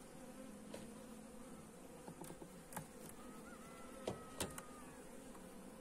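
Honeybees humming steadily from an open hive, with a few light clicks and knocks as the wooden hive frames are handled.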